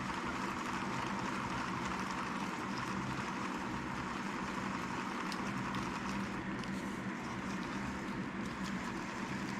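Zebco 33 spincast reel being cranked steadily, a continuous gear whir as new line winds onto the spool.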